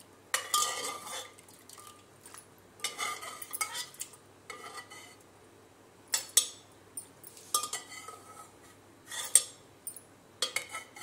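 A steel ladle scraping and clinking against a pressure cooker and a steel mixer jar as soft boiled mango pieces are scooped from one to the other. The scrapes and clinks come in short clusters every second or two.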